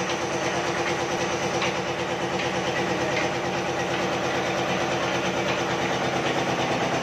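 Belt-driven Upkar six-bolt heavy-duty oil expeller running with a steady mechanical hum and a fast, even beat, with a few faint ticks.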